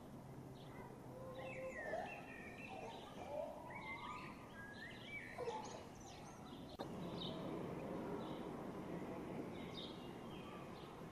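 Outdoor ambience with wild birds singing, varied song phrases rising and falling in pitch over the first six seconds or so. A sudden click follows, then a steady background rush with a few short, high chirps.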